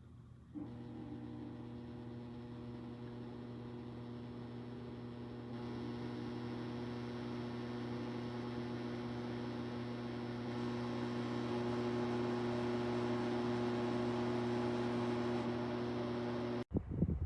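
Dreo Cruiser Pro bladeless tower fan switching on and running: a steady motor hum with airflow rush that gets louder in two steps as the speed is raised, then stops abruptly near the end.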